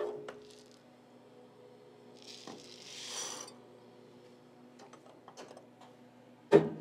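Bronze casting grain poured from a paper tube into the crucible of a vacuum casting machine: a short pattering rattle about two to three seconds in, with light clicks and a sharp metallic knock near the end, over a faint steady hum.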